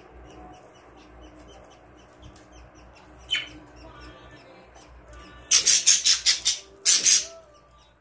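Budgerigars in a nest box: faint chirping, then two loud, harsh bursts of rapid raspy calls past the middle, typical of budgie chicks begging as the parent feeds them.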